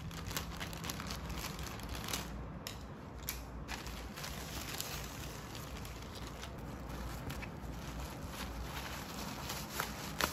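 Scissors snipping through a plastic courier mailer bag, with the thin plastic packaging crinkling and rustling as it is handled, in a dense run of small crackles and ticks.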